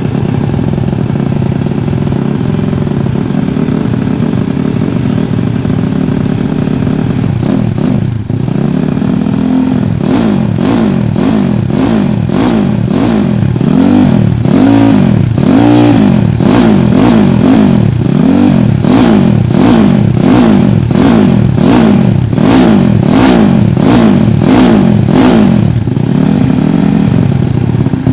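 Bored-up Yamaha Vega ZR single-cylinder four-stroke engine running through a prototype silent-type exhaust: steady for about eight seconds, then revved in a string of short throttle blips, about one a second. The freshly rebuilt engine still feels heavy to the builder, who thinks it needs breaking in.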